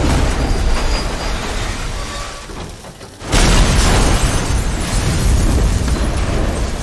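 Film sound effects of a tanker truck crash. The noise of the overturned truck fades over about three seconds. Then a sudden loud explosion goes off, and its deep rumble slowly dies away.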